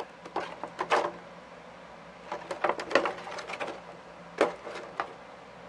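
Light scattered clicks and taps of hard plastic as an action figure and its packaging are handled, with a busier run of them in the middle and two sharper clicks near the end.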